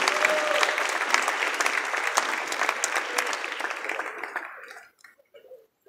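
Audience applauding, the clapping fading away over about four seconds and stopping about five seconds in.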